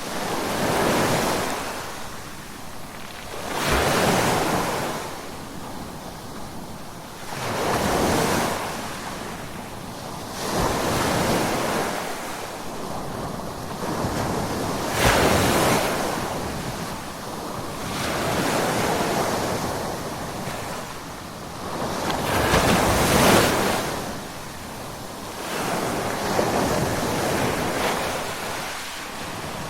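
Ocean waves breaking on a shore, the surf rising and falling away about every three to four seconds, with roughly eight swells in a row.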